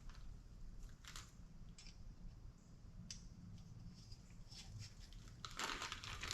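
Faint scattered clicks and scrapes of small parts being handled, then a dense crinkling of plastic wrapping starting about five and a half seconds in.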